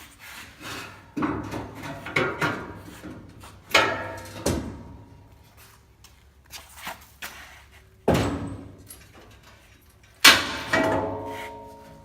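Irregular heavy metal bangs and clanks, about six spread over several seconds, some leaving a brief metallic ring, as a steel trailer fender is banged and levered loose from the trailer. The loudest bang comes near the end.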